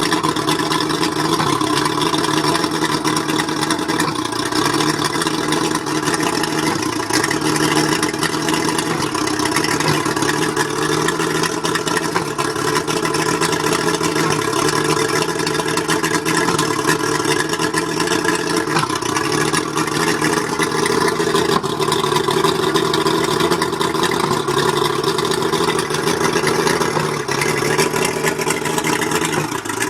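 Mercury 135 outboard motor running at a steady speed, rough and misfiring, which the owner thinks may be down to the spark plugs.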